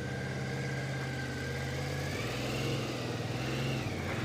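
Motorcycle engine running steadily at idle, its note dropping slightly about two seconds in and rising again near the end.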